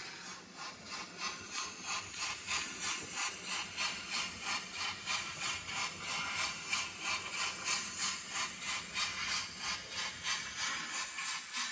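N-gauge model train running on its track, a steady rhythmic clicking of about two to three clicks a second.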